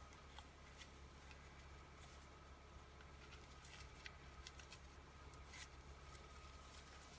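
Near silence: faint, scattered ticks and rustles of ribbon and cardstock being handled as a ribbon knot is tied, over a low steady hum.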